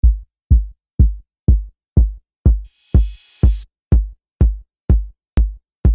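Electronic intro music: a deep drum-machine kick beating about twice a second, with a hissing swell that builds about three seconds in and cuts off suddenly, and a sharp click near the end.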